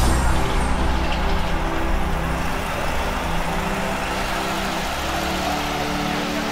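A heavy motor vehicle's engine running, a deep rumble that eases off over the first couple of seconds.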